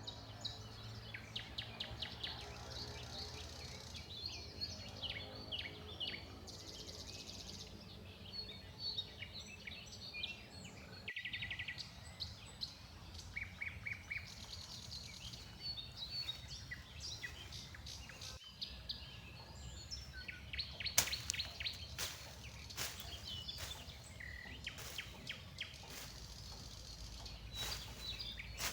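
Forest birds chirping and trilling in many short calls, over a low steady background. A run of sharp clicks or taps comes in the second half.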